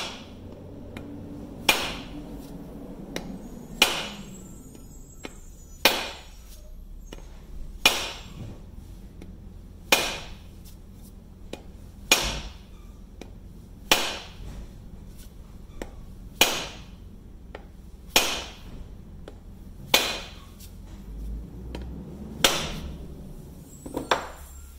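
Rubber mallet striking the end of a new wooden axe handle: about a dozen sharp knocks, roughly two seconds apart. This is hanging an axe head, each blow's inertia driving the head farther up onto the tight-fitting handle.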